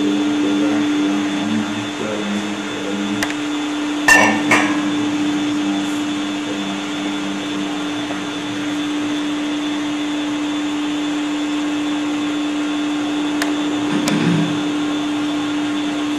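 A steady low hum over a haze of hiss. There are two sharp knocks a fraction of a second apart about four seconds in, and a short low rumble near the end.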